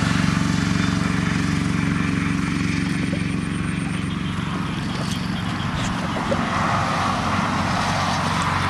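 A small engine running steadily with a low hum, slowly growing fainter over the first half.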